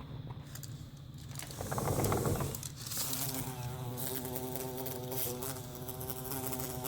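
Bumblebee buzzing, a steady low drone that grows louder and clearer about three seconds in.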